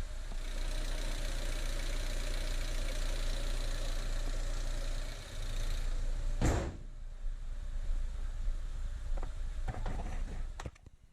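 Renault Megane 1.6 16-valve petrol engine running steadily, with one loud thump a little past halfway. The running sound cuts off shortly before the end.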